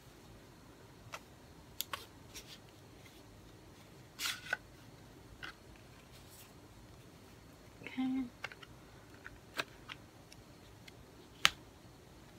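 A CD being handled: a cardboard slipcover slid off and a plastic jewel case opened, with scattered light clicks and brief rustles and one sharp plastic click near the end as the case pops open.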